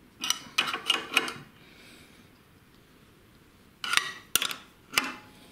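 Steel wrenches clinking against a bolt, nut and washers as they are fitted and turned to draw up a blind rivet nut: about four sharp metallic clinks in the first second and a half, then three more about four seconds in.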